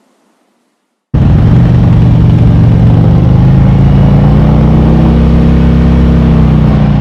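Harley-Davidson V-twin motorcycle engine starts in abruptly about a second in and runs loud and steady, its pitch rising slightly and then easing. It begins to fade near the end.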